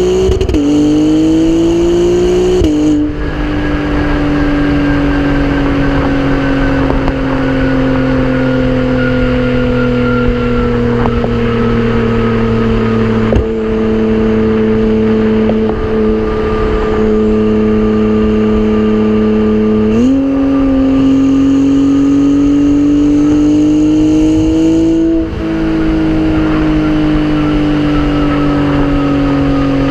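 2017 Acura NSX's twin-turbo V6 running through a PRIDE valved exhaust with catted downpipes, heard close to the exhaust tips while the car drives along, its note slowly drifting in pitch. The pitch drops sharply about three seconds in, as on an upshift, jumps up about twenty seconds in, as on a downshift, and drops again about five seconds later.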